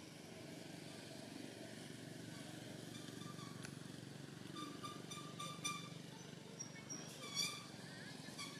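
Outdoor ambience: a steady low rumble, with short high-pitched chirping calls repeating in quick runs from about three seconds in. The loudest chirp comes near the end.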